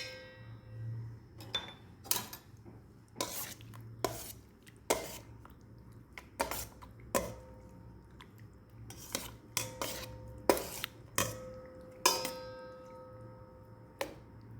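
A utensil clinking and scraping against a bowl while mixing chicken pieces into a barbecue marinade. There are many irregular knocks, some with a short ring, thickest in the second half.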